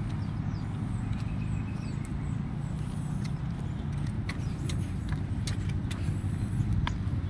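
Steady low outdoor rumble, with a few light clicks scattered through it.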